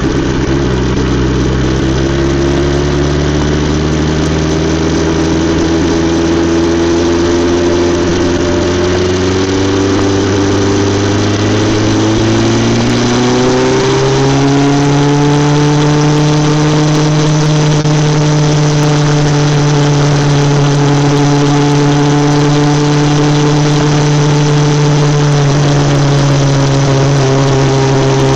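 BMW S 1000 XR's inline-four engine running through an Akrapovič exhaust. Its pitch climbs slowly, rises more steeply about halfway through, then holds nearly steady.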